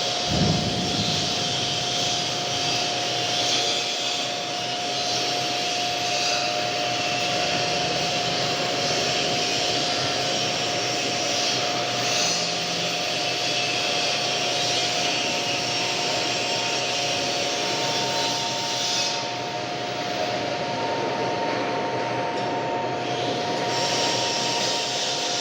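Metal lathe running steadily, a continuous whirring with a constant high tone; a second, higher tone joins about two-thirds of the way through.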